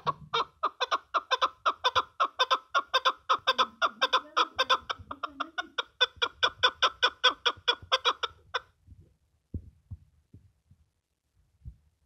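Chukar partridge calling a fast, steady run of short 'chuk' notes, about five a second, which stops about eight and a half seconds in.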